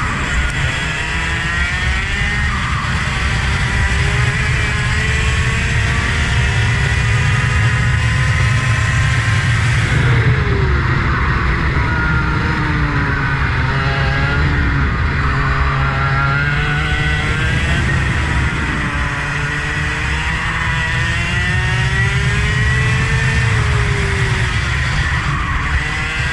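A racing vehicle's engine being driven hard on track. Its note climbs repeatedly under acceleration and drops away at gear changes and braking, over a steady deep rumble.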